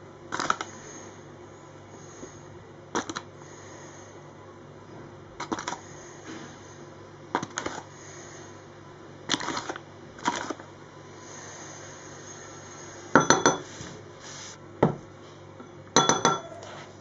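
A spoon clinking and tapping against a bowl while spoonfuls of flour are measured in: about nine sharp clinks, a second or two apart, with the loudest near the end.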